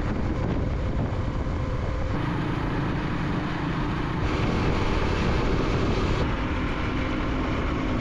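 Motorcycle riding on the road: a steady engine hum under wind and road noise, shifting slightly every couple of seconds.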